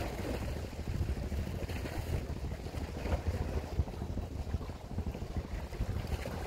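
Wind rumbling and buffeting on the microphone over the wash of the sea against the breakwater.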